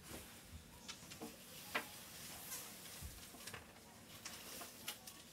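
Scattered small clicks, taps and scrapes from scraping and picking at hardened bedding in a small pet's cage.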